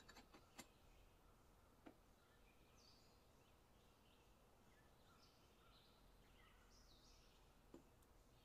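Near silence: faint room tone with a few soft clicks of glass and crockery being handled, most of them in the first second, and faint bird chirps in the background.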